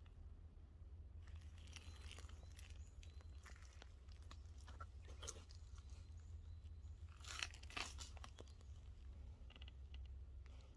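Faint rustling and crackling, loudest in two quick bursts about seven seconds in, over a low steady rumble.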